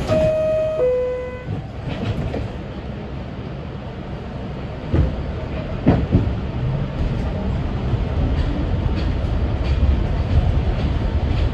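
Two-note falling door chime of an R62A subway car, then the car's steady low rumble with a few sharp clicks of wheels over rail joints about five and six seconds in.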